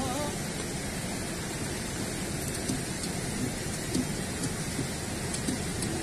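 A steady, even rushing noise, with a few faint clicks as a knife cuts into pieces of grilled meat held in the hand.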